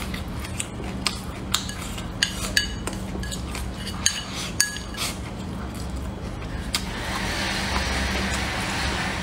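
Chopsticks clicking and scraping against a ceramic bowl while food is shoveled from it, a few of the taps ringing briefly. After about seven seconds the clicks thin out into chewing noises, over a steady low hum.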